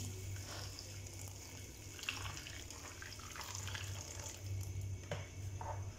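Hot water poured from a kettle onto dried fumbwa leaves in a stainless steel bowl, a steady splashing stream, with a low steady hum underneath.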